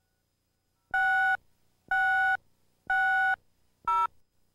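Countdown beeps on a commercial tape's slate: three identical electronic beeps about a second apart, each lasting about half a second. They are followed near the end by a shorter beep at a different pitch.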